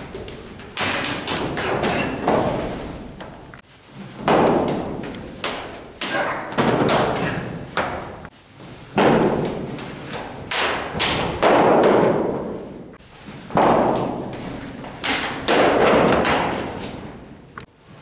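Thuds and slaps of empty-hand strikes, blocks and footwork against a stick-wielding opponent during sparring. They come as a sudden hit every two seconds or so, each dying away over a second or more, with a few sharp clicks near the end.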